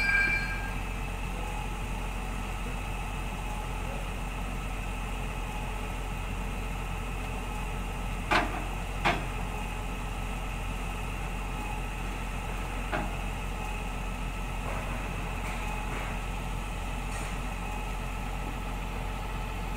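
Hyundai wheel excavator's diesel engine idling steadily. Two sharp knocks come about eight and nine seconds in, with a fainter one a few seconds later, and a brief high-pitched squeal at the very start.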